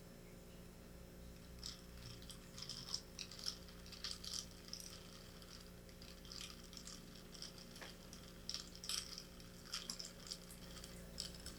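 Faint, scattered light clinks and taps of glass and metal kitchenware being handled, over a steady low hum.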